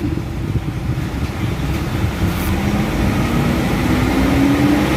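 Nissan Navara Calibre engine revving up slowly under the throttle, its note dipping briefly and then climbing steadily toward almost 3,000 rpm. The sluggish climb is the throttle delay being tested, which the mechanic blames on uneven injector spray.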